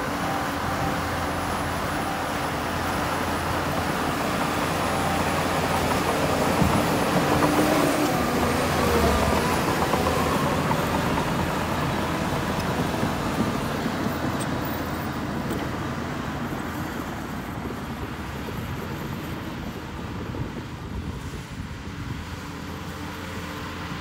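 Diesel engine of heavy earthmoving machinery running, a steady low drone that builds to its loudest about a third of the way in and then slowly fades.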